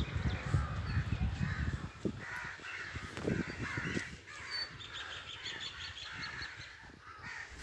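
Crows cawing in the background, with a low rumble on the microphone through the first few seconds and a quick run of high chirps about halfway through.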